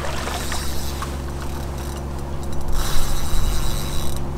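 Fishing reel mechanism running as a hooked barbel is played in on rod and reel, busier and louder for about a second near the end. A steady low hum runs underneath.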